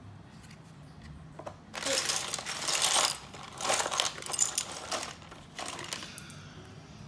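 Small plastic building-block pieces clattering and rattling as a hand rummages through a pile of them, in two loud bouts about two and four seconds in, then a few lighter clicks.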